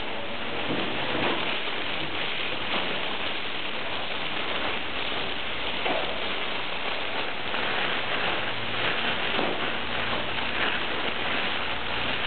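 Many thin nylon plastic bags crumpled and rubbed in the hands of a group at once, giving a steady, dense crackling patter that imitates rain.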